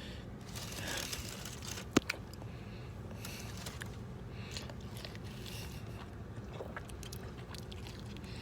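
A person biting into and chewing a double steak grilled cheese burrito close to the microphone, with one sharp crunch about two seconds in and quieter chewing after.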